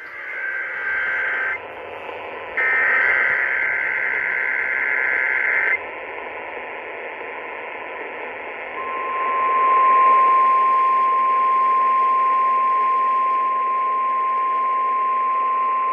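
NOAA Weather Radio alert over steady radio static: two short bursts of warbling digital data in the first few seconds, then the single-pitch warning alarm tone starting about nine seconds in and holding steady. The tone signals that an alert broadcast, here a Tornado Watch, is about to be read.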